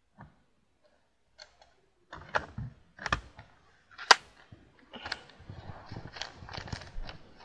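Clicks, knocks and rubbing from small objects being handled close to the microphone: a few faint clicks, then from about two seconds in a run of sharp knocks, the loudest about four seconds in, followed by a busy stretch of rattling and rustling.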